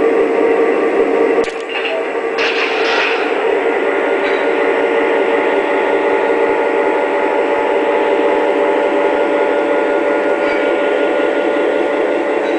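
Lionel Legacy NYC GP-7 O-gauge locomotive's onboard diesel engine sound playing from its speaker, a steady hum, with the model's wheels rolling on the track.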